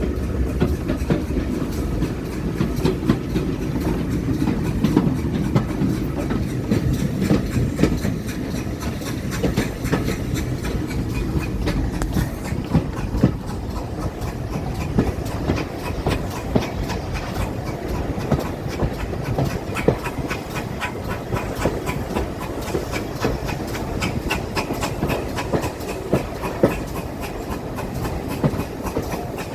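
Railway train running along the track with a steady rumble, its wheels clicking over the rail joints.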